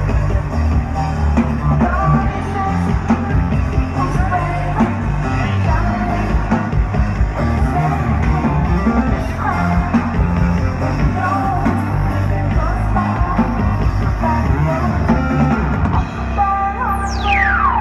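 Live electronic music with heavy bass, drums and a sung vocal line, heard loud from within the crowd. Near the end a synth sweep falls steeply in pitch.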